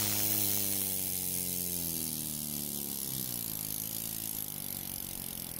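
Kacio LS1-14 single-cylinder reciprocating model steam engine running, its hum falling in pitch over the first few seconds as it slows down, then running slower and quieter, with a steady hiss.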